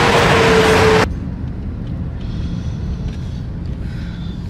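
Loud traffic noise with a steady hum that cuts off abruptly about a second in. It gives way to the low, steady rumble of a car driving.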